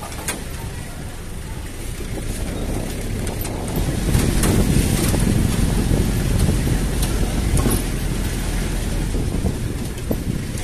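Engine and road noise of a slow-moving utility vehicle heard from its open cargo bed, a steady low rumble with a few sharp clicks and knocks.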